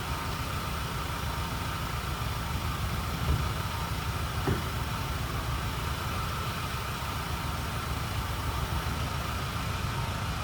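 BMW E90 320i's N46B20 2.0-litre inline-four idling steadily, fully warmed up. Two light knocks a few seconds in.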